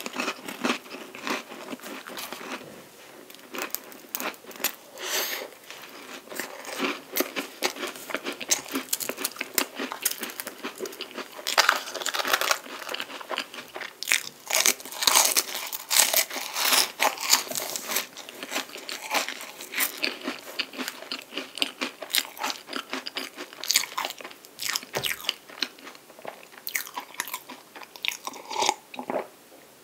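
Close-miked crunching and chewing of a chocolate-coated palmier carré, a flaky French puff pastry, taken with whipped cream: many crisp, crackly bites and chews one after another. Near the end come a few swallows of milk.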